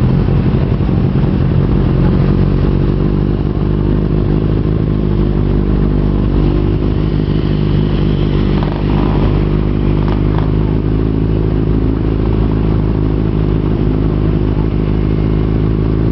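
Motorcycle engine running loud at steady revs.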